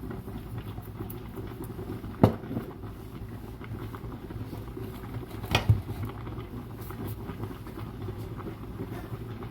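Two sharp knocks of kitchenware, about two seconds in and again between five and six seconds, over a steady low kitchen hum while the cabbage cooks.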